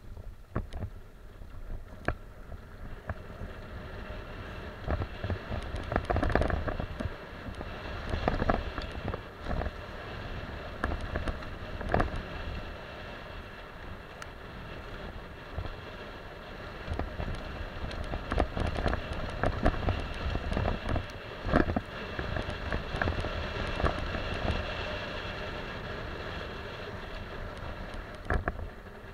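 Mountain bike riding fast over a dirt trail: wind buffeting the microphone, tyre rumble, and frequent sharp rattles and knocks as the bike hits bumps.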